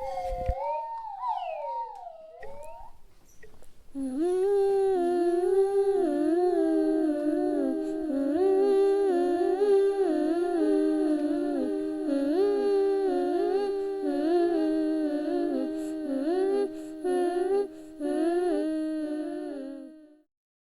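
Wordless humming of a slow, gently wavering melody in two close voices. It starts about four seconds in and fades away at the end. Before it come a few short sliding whistled tones.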